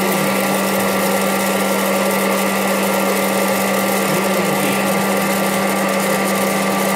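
Popcorn popper's fan motor running with a steady hum.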